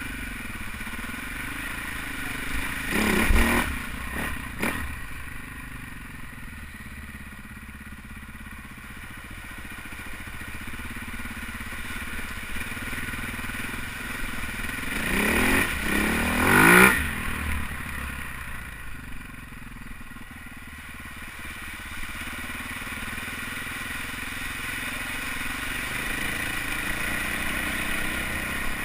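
Husaberg FX450 four-stroke single-cylinder dirt bike engine running as it rides through water-filled trail ruts. It revs hard twice, about three seconds in and again from about fifteen to seventeen seconds, with water spraying off the tyres.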